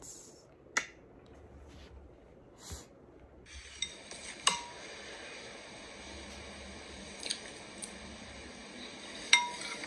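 A few sharp clicks and light taps, with a faint steady hiss setting in a few seconds in.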